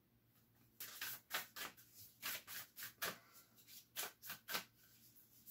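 Oracle cards being shuffled and handled by hand: an irregular run of short, crisp papery snaps and rustles starting about a second in and stopping near the end.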